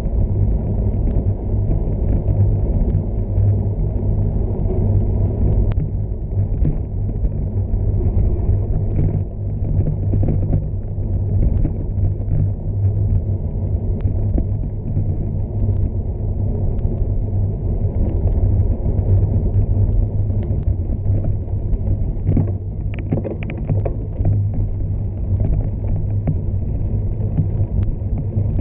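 Steady low rumble of wind buffeting the camera microphone, mixed with the tyre noise of a gravel bike on Panaracer GravelKing SK 700x43 tyres rolling fast down a dirt road. Scattered small clicks and rattles sound from gravel and the bike.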